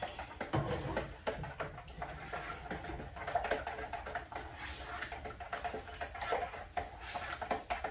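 A utensil stirring a wet gravy mix in a bowl, making irregular light scrapes and taps against the bowl.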